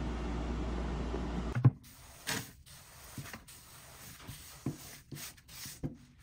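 A steady machine hum and hiss stops abruptly about a second and a half in with a sharp knock. Then come soft scattered rustles and patters as router shavings are swept by a gloved hand off a wooden workbench and fall into a plastic bucket.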